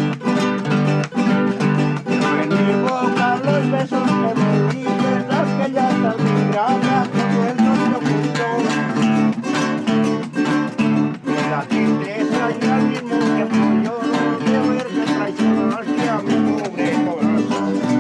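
A folk string ensemble playing an instrumental passage: acoustic guitars strummed in a steady, even rhythm with a plucked melody line on top, and no singing.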